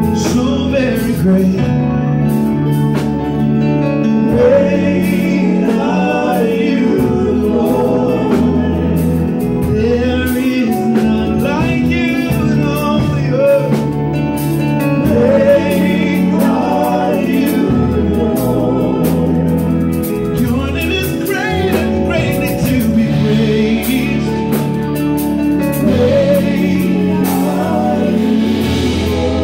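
Live gospel worship band: a man sings lead over chords on a Yamaha Motif XS8 keyboard, with electric bass and a drum kit keeping a steady groove and cymbals ticking on top.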